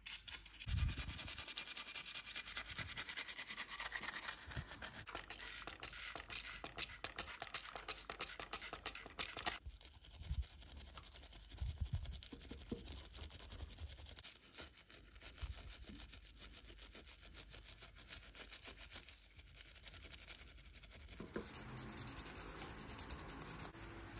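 Stiff nylon-bristled brush scrubbing a small grimy diecast model part in a metal tray, in quick back-and-forth scratchy strokes. The strokes are dense at first and lighter after about ten seconds. Near the end the sound changes to the softer rubbing of a sanding sponge on a clear plastic part.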